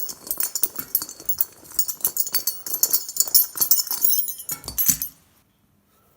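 Small metal parts of a light fitting clinking and jingling as they are handled and pulled apart, with a dull knock near the end before it stops abruptly.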